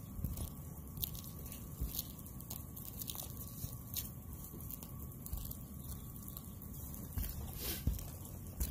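Sparse, irregular light crunches and ticks on an asphalt-shingle roof, ending with work boots stepping across the shingles near the end.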